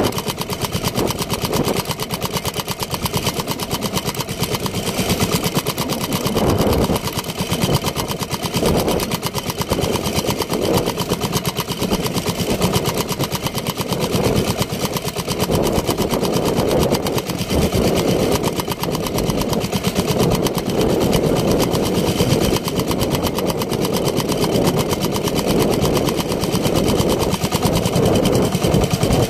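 Small outrigger fishing boat's engine running steadily under way, a rapid even pulse of firing strokes, with water rushing and splashing along the hull.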